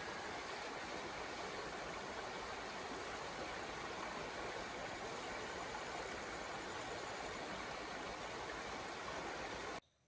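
Shallow stream running over rocks and pebbles: a steady rush of water that cuts off abruptly near the end.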